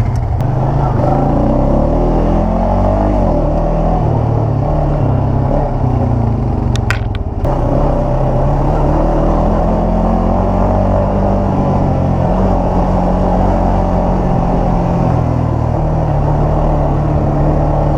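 ATV engine running under throttle, its pitch rising and falling as the rider speeds up and eases off.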